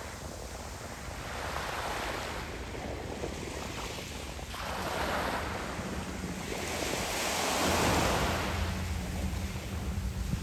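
Small sea waves washing up onto a pebble beach and drawing back, in three surges a few seconds apart. The last surge, about eight seconds in, is the loudest.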